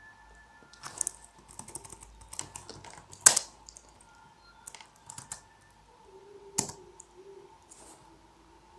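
Typing on a computer keyboard: a quick run of key clicks over the first few seconds, the loudest keystroke about three seconds in, then a few scattered key presses, one sharp one past the middle.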